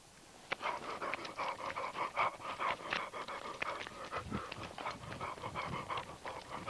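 Rapid, irregular panting breaths close to the microphone, starting about half a second in and running on quickly without a break.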